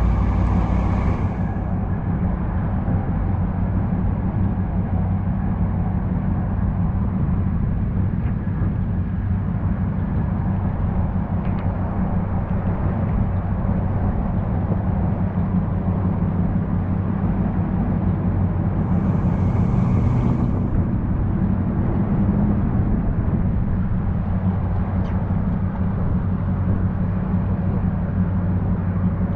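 A vehicle engine running steadily with a low hum and rumble, with a short hiss near the start and again about two-thirds through.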